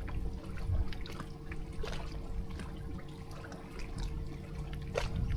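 Water trickling and splashing steadily, with a faint steady hum and scattered small clicks and drips.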